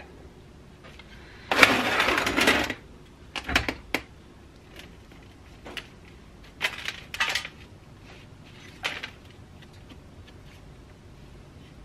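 Hands working on the mud-caked stator housing of an old Frigidaire motor: a scraping, rustling rush about a second and a half in, then a few short clicks and scratches as the fingers pick at the windings.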